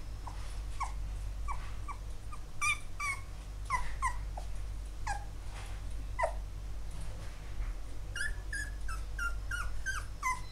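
Labrador Retriever puppy whimpering: a string of short, high cries, each sliding down in pitch, with a quicker run of short cries near the end.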